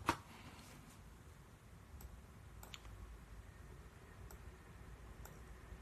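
Quiet room tone with a low hum and a few faint, sharp clicks scattered through it, about five in all.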